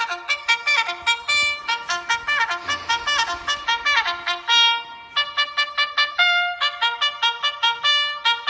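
Trumpet playing a fast tune of short, detached notes, with one longer held note a little past halfway, sounding as a wake-up alarm.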